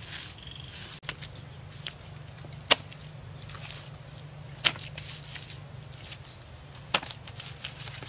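A hand smearing wet mud across a mud wall in a swishing stroke, stopping about a second in. Then three sharp clicks about two seconds apart, the loudest sounds, over a steady low hum.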